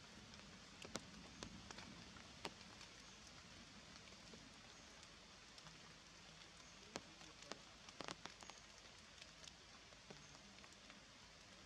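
Faint dripping of raindrops onto wet leaves: irregular sharp single drips over a soft steady hiss.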